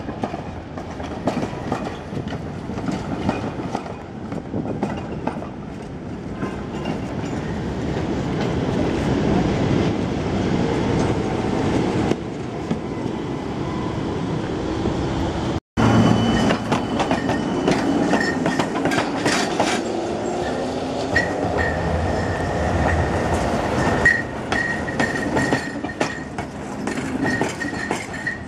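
Tatra trams rolling past on street track, wheels rumbling and clattering over the rails. After a break about halfway through, a thin high wheel squeal comes and goes as trams take the curve.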